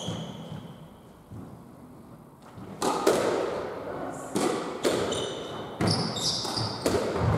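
Squash rally: a squash ball struck by rackets and hitting the court walls in a series of sharp, echoing knocks starting about three seconds in, with short squeaks of court shoes on the wooden floor.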